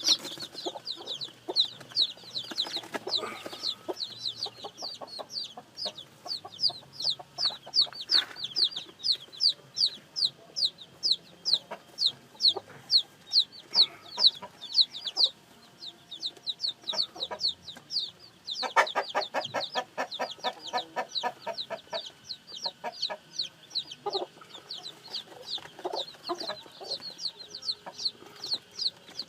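Newly hatched chicks peeping without pause: a rapid string of high, falling cheeps, about three or four a second. About two-thirds of the way through, a short run of fast, lower-pitched pulses joins in.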